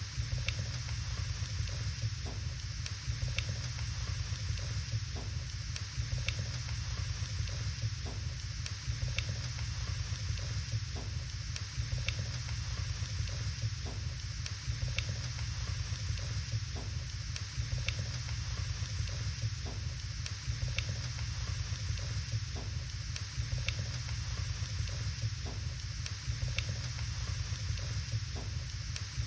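Firewood burning in a fireplace: a steady hiss and low rumble of the fire with sharp crackles and pops scattered irregularly throughout.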